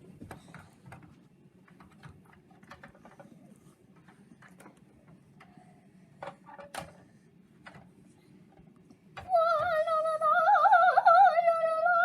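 Faint scattered taps and clicks, then about nine seconds in a voice starts singing one long high wavering note with vibrato, much louder than the taps.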